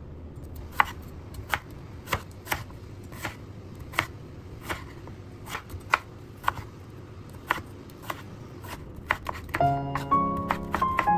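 Chef's knife chopping cucumber on a wooden cutting board, sharp knocks at an uneven pace of about one and a half a second. Music comes in near the end, louder than the chopping.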